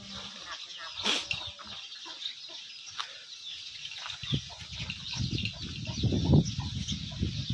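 Chickens clucking in the background, with a short knock about a second in and a louder low rumbling noise from about five to seven seconds in.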